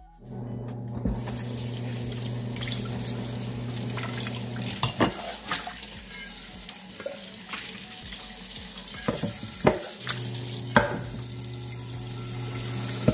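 Tap water running into a kitchen sink and an aluminium pot while peeled sweet potatoes and a peeler are rinsed, with a few sharp knocks and clinks of the utensils against the pot. A steady low hum runs under the water, stops about five seconds in and returns about ten seconds in.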